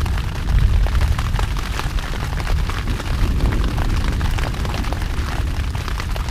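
Thunderstorm noise heard from a small open boat: a loud, unbroken low rumble that eases slowly, with many small ticks and pops over it.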